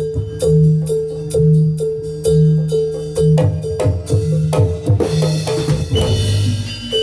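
Jathilan gamelan music played loud through a sound system: struck metal-keyed instruments repeat a short pattern of notes, about one cycle a second, over drum hits. About five seconds in the percussion grows denser, with a bright splashy layer added.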